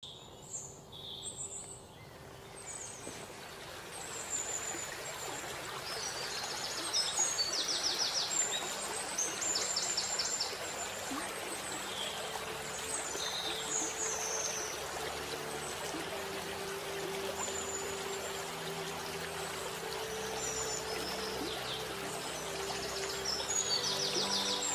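Running water with birds singing over it in short chirps and fast trills. Soft background music with held notes fades in about halfway through.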